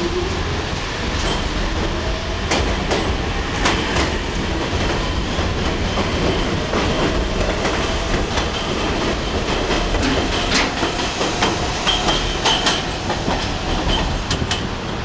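New York City subway F train running along the station platform: a steady rumble with steel wheels clacking over rail joints, a faint whine, and a brief high wheel squeal about twelve seconds in.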